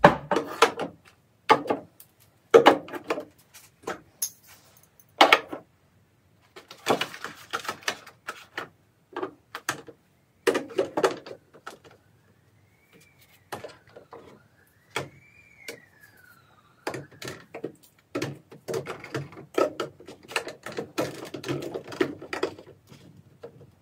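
Plastic and glass toiletry bottles and jars being handled and set down on a bathroom cabinet shelf: irregular knocks and clatters. A faint high tone rises and falls twice around the middle.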